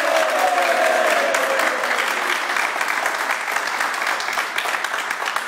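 A small group of people applauding with rapid, continuous hand claps, and a drawn-out voice call over the first two seconds.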